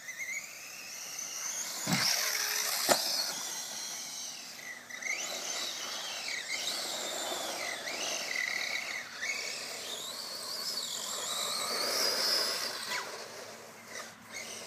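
DF-Models Speedfighter 2 RC buggy's motor whining high, rising and falling again and again as it speeds up and slows. Two sharp knocks come about two and three seconds in.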